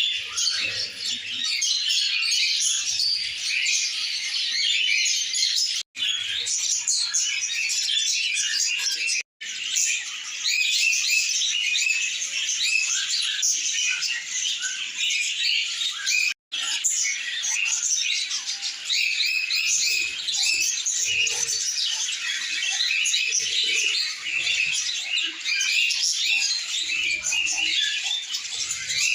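Small pet parrot chattering and chirping in a continuous rapid, high-pitched stream, broken by three very brief silences.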